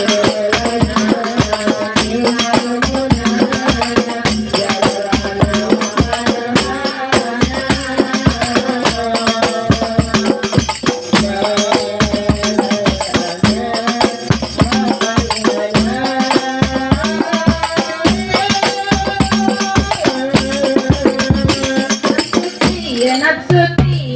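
Instrumental interlude of sholawat backing music: a melody in phrases over a steady, busy tambourine rhythm. Near the end the tambourine drops out and deep hand-drum strokes take over.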